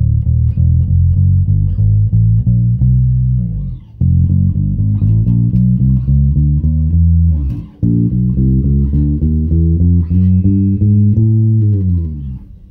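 TUNE SWV-6 six-string electric bass with a 33-inch scale, played fingerstyle: a run of plucked bass notes with two short breaks, about four and eight seconds in. The last notes fade out near the end.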